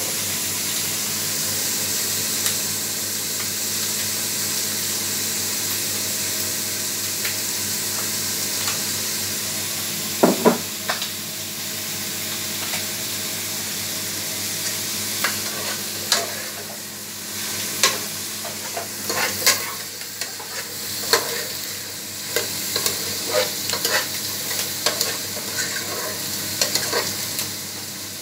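Diced vegetables sizzling as they sauté in a stainless steel pot, with a steady frying hiss. A metal spatula knocks against the pot once, then scrapes and clinks against the pot repeatedly as the vegetables are stirred through the second half.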